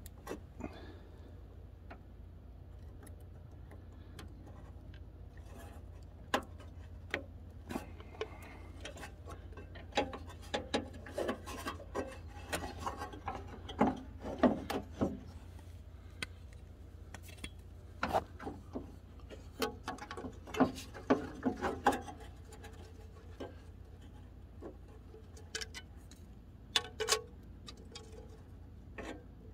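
Hand work at a pickup's headlight housing: irregular clicks, taps and rubbing of a screwdriver and plastic headlight parts being handled, busiest around the middle, over a steady low hum.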